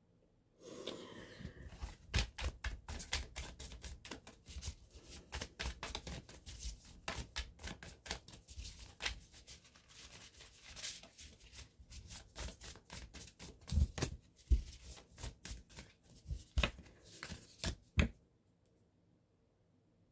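A deck of tarot cards being shuffled by hand: a dense run of quick card flicks and slaps, with a few louder knocks toward the end, stopping suddenly about 18 seconds in.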